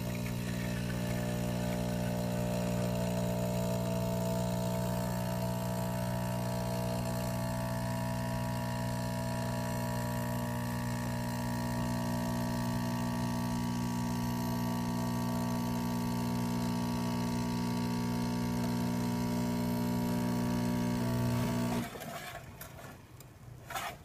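DeLonghi ECAM23210B espresso machine running its brewing cycle, a steady buzzing hum as the pump pushes espresso through the spout. It stops suddenly near the end as the shot finishes.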